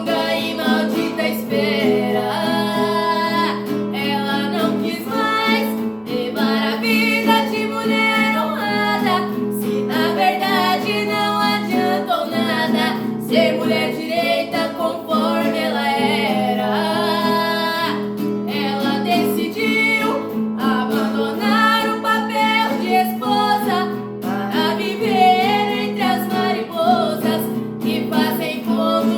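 A song: a female voice singing a melody over plucked acoustic strings, with steady low notes underneath.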